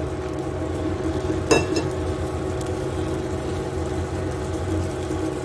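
Sugar syrup boiling in a pan over a steady low hum. About a second and a half in, a metal utensil strikes the pan once with a short ringing clink.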